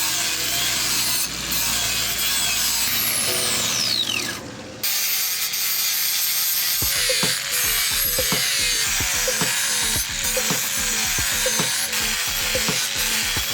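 Steel knife blade being filed or sanded by hand: continuous scratchy rubbing, with regular strokes about twice a second in the second half.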